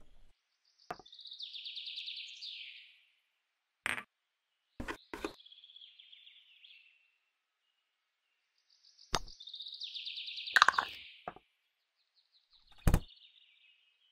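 Small hard-plastic toy food pieces scraping across the plastic shelves of a miniature toy fridge as they are slid out: three drawn-out rasping scrapes between sharp clicks and taps, the loudest click about four seconds from the end.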